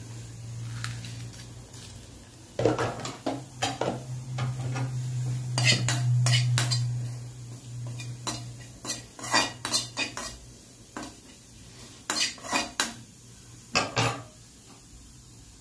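Steel spoon clinking and scraping against a black iron kadai in quick irregular bursts while dried fenugreek leaves (kasuri methi) are stirred and dry-roasted. A low steady hum runs under the first half.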